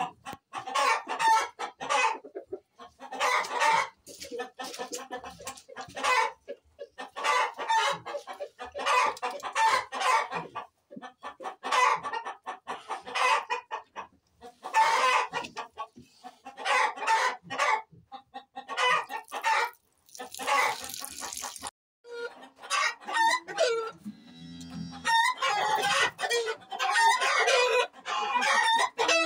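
Flock of chickens clucking and cackling over one another, with a rooster crowing; a short rustling burst about two-thirds of the way through.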